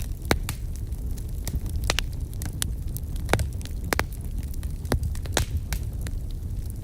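Wood campfire burning, crackling with irregular sharp pops and snaps, several a second, over a steady low rumble.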